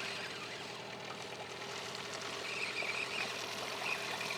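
Hidea 9.9 hp outboard motor running at low trolling speed, a steady hum.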